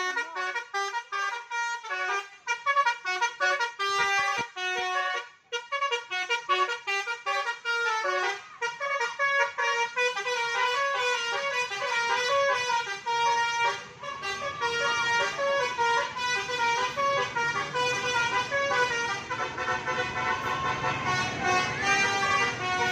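Indonesian bus's 'telolet' musical horn playing a long string of quick multi-note tunes. From about halfway through a low engine rumble runs underneath.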